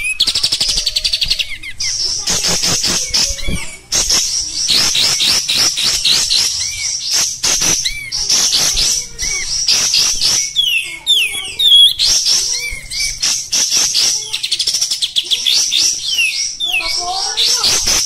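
Kapas tembak bulbul singing a harsh, rapid chattering song: high-pitched notes in fast runs with hardly a pause, and a few lower warbled notes near the end.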